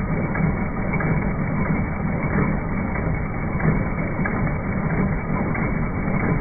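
Bestsew B-3620 15-needle commercial embroidery machine running steadily, its needle bar stitching fill in rapid repeated strokes.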